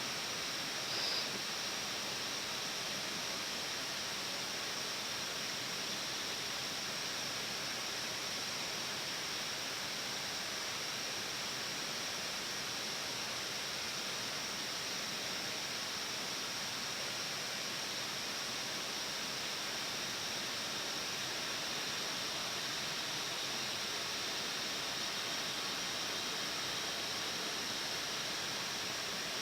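Steady hiss of an Airbus A320-family flight deck while taxiing, with ventilation and engine noise blended into one even rush, and a faint short high chirp about a second in.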